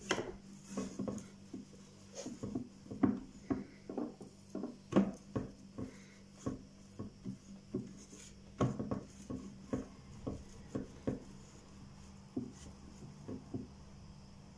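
A hand smearing solid fat over an aluminium baking tray: irregular short rubs and soft knocks of hand and tray, fewer after about 11 seconds.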